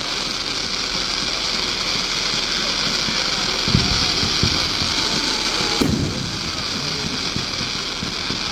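Fireworks going off: a dense, steady crackling with a few dull bangs, the sharpest one about six seconds in.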